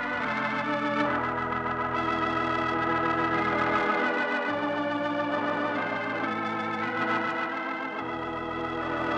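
Organ music: held chords with a wavering tremolo that shift every second or two.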